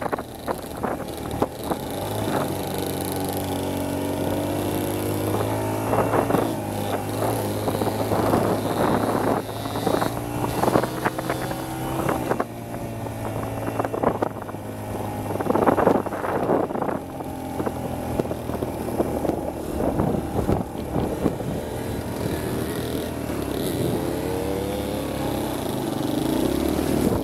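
Dirt bike engine running steadily as the bike rides a rough dirt trail, its pitch rising and falling with the throttle, with knocks and rattles from the bumps throughout.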